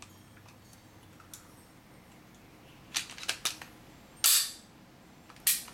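Springfield XD subcompact 9mm pistol being field-stripped by hand: sharp clicks and clacks of the slide and takedown lever. There is a faint click, then a cluster of clicks about three seconds in, the loudest clack a little after four seconds, and another near the end.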